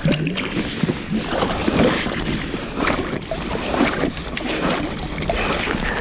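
Sounds of a small boat on open water: wind on the microphone and water lapping at the hull, with irregular knocks and rattles.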